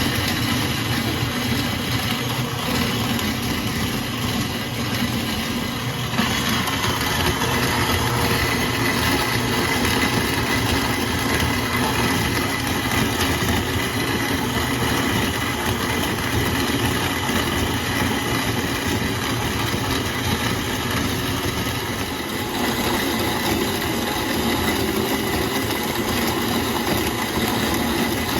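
KitchenAid stand mixer running a grain mill attachment, grinding hard white wheat berries into flour on its finest setting: a loud, steady motor hum with a grinding rasp, its tone shifting slightly about six seconds in.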